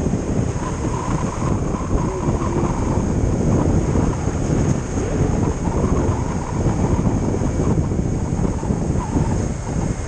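Motorcycle riding along a road: steady engine and road noise under heavy wind buffeting on the microphone.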